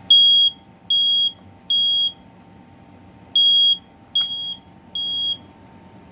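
Kidde 0910 ionization smoke alarm sounding on test: two rounds of three loud, high-pitched beeps with a pause between them, the standard temporal-three alarm pattern.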